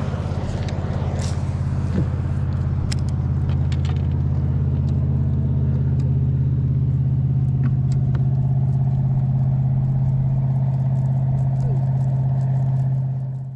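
Boat motor running steadily with an even low hum, with a few faint ticks and taps over it.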